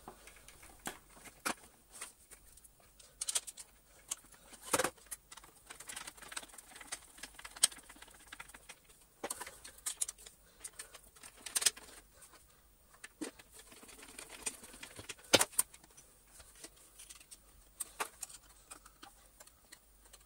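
Plastic parts of a Gtech AirRam cordless vacuum clicking and tapping as they are handled and fitted together, with a few sharper knocks.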